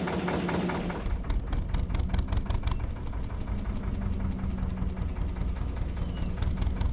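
Narrowboat engine running steadily while under way, a low rumble with a steady hum, with a run of quick ticks about a second in.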